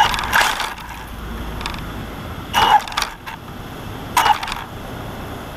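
Axial Yeti RC rock racer's electric motor and gear drivetrain whining in three short throttle bursts, about a second and a half apart, with a steady drivetrain whir between them.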